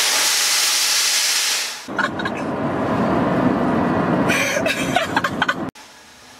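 Pressurized A/C refrigerant blasting out of a cut line in a car's engine bay, a loud, explosive hiss that fades after about two seconds; the line was opened without first relieving the system's pressure. It is followed by a duller rushing noise that cuts off sharply near the end.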